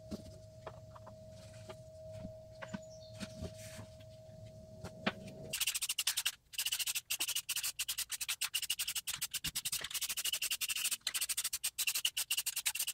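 Faint handling of cardboard and small parts over a steady hum, then about five and a half seconds in an aerosol spray-paint can hissing in rapid, choppy bursts.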